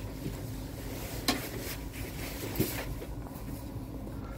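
Steady low hum inside a passenger train's door vestibule, with two sharp clicks a little over a second apart.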